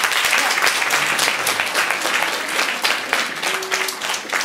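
Audience applauding: a dense run of many hands clapping together.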